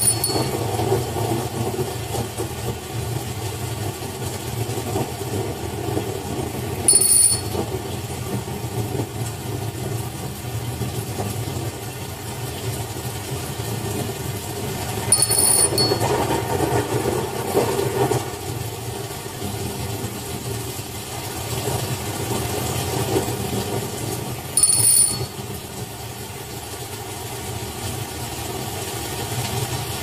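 Small hand bell hanging from a string, giving short high rings four times, about eight seconds apart, over a steady low rumble.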